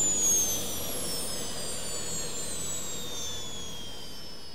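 Whooshing zoom sound effect: a steady rush of noise with several high whistling tones gliding slowly downward together, fading gradually.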